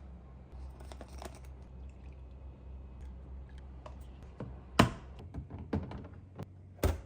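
A handful of sharp clicks and knocks, the loudest about five seconds in and another near the end, over a low steady hum.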